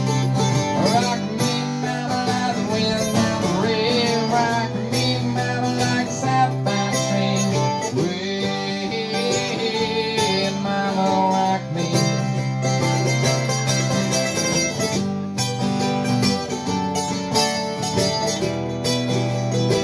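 Live acoustic folk music from a duo, led by guitar over a repeating pattern of low bass notes.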